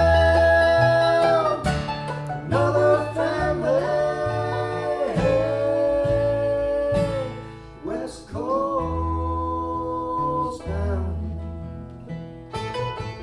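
Acoustic band playing a passage between sung verses: strummed acoustic guitar and a stepping bass line under long held, bending melody notes.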